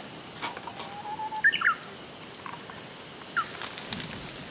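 A wild songbird calling: a held, low whistled note followed by a quick phrase of higher notes, then one more short chirp later on. There is a light knock near the end.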